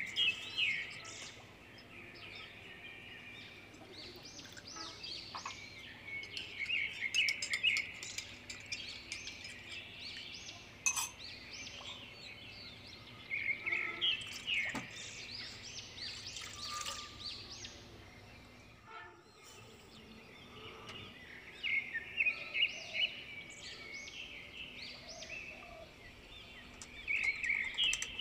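Small songbirds chirping and twittering in bursts of quick, high notes, with a lull in the middle.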